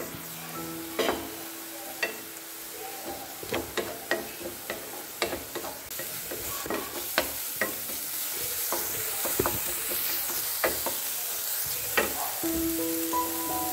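Wooden spatula stirring and scraping ground onion and green chilli frying in oil in a nonstick pan. It makes irregular knocks against the pan over a steady sizzle, which grows stronger about halfway through.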